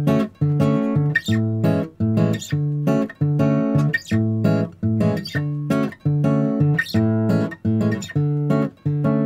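Background music: acoustic guitar strumming chords in a steady, even rhythm.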